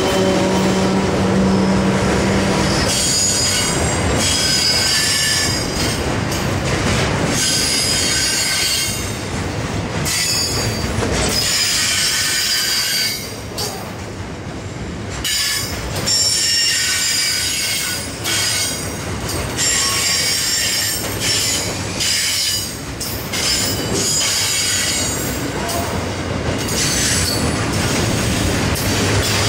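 Container wagons of a freight train rolling past, their steel wheels squealing against the rails in repeated high squeals lasting a second or two each, over steady wheel-on-rail rumble and clatter. A steady low hum from the departing locomotive fades out in the first few seconds.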